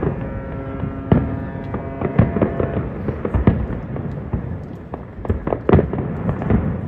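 Aerial fireworks shells bursting in a string of sharp, irregular bangs, over music with long held notes.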